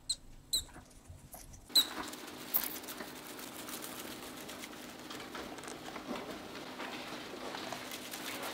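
Mice squeaking: three short high squeaks in the first two seconds. Then steady rustling and scratching of a mouse scurrying through straw bedding.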